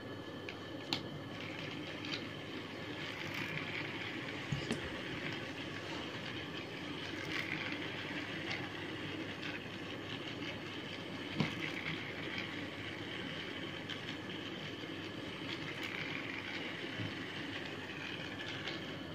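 Motorised plastic toy train running around a plastic oval track: a steady small-motor whir with gear and wheel rattle, and a few sharp clicks, the loudest about a second in and about eleven seconds in.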